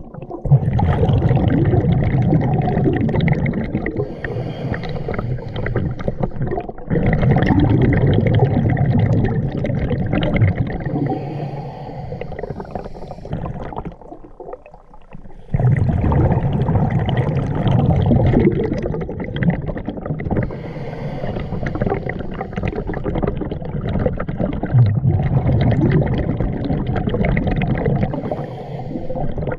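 Scuba diver's exhaled breath bubbling from the regulator, heard underwater as long stretches of gurgling, rumbling bubble noise, with a brief break about seven seconds in and a quieter lull between about twelve and fifteen seconds.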